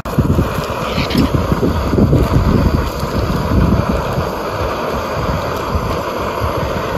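Wind buffeting the microphone: an uneven low rumble in gusts over a steady hiss.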